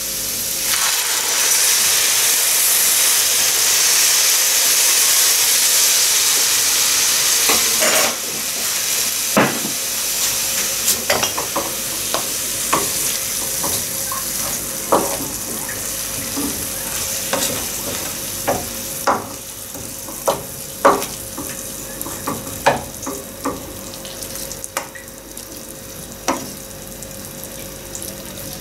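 Water poured into a hot frying pan of frying pumpkin, onion and carrot hisses loudly for about eight seconds. Then a wooden spatula stirs and scrapes the vegetables in the pan, with frequent short knocks over a quieter sizzle.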